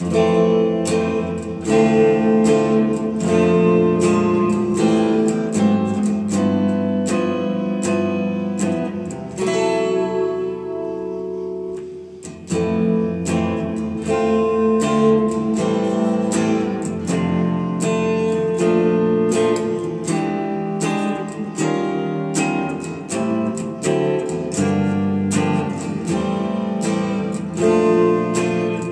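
A cherry-red SG-style solid-body electric guitar played solo, with chords and single melody notes struck about once a second at an unhurried pace. The playing thins out and dies down to a brief lull about ten to twelve seconds in, then picks up again.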